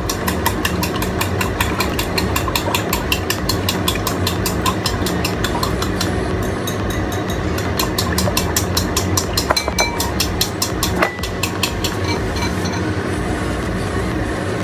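Chopsticks whisking in a ceramic bowl: a quick, steady clicking of about four or five strokes a second that stops about twelve seconds in. A steady low hum runs underneath.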